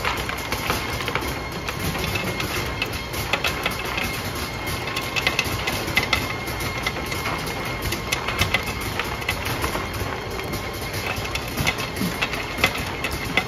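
Belt-type optical colour sorter running, a steady hum from its belt drives with a faint whine, over which come scattered sharp ticks as cashews are ejected and drop into plastic bins and onto a tray.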